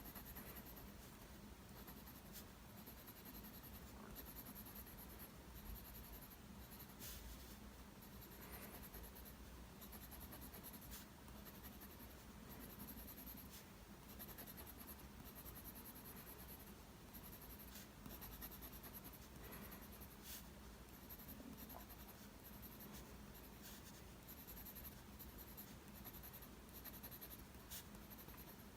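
Faint scratching of a mechanical pencil's lead on paper as trees are sketched and shaded, with a few light ticks scattered through.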